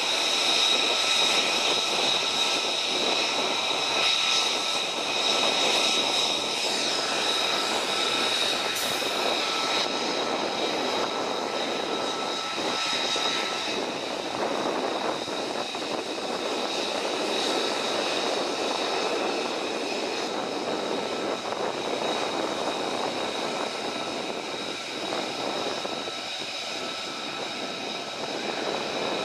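Jet engines of a close formation of F-35 fighters and large transport aircraft taxiing: a steady roar with high, steady turbine whine tones over it, easing slightly in the second half.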